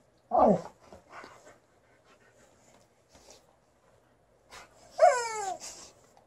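Alaskan Malamute giving two short vocalizations, each falling in pitch: one about half a second in and a louder one about five seconds in.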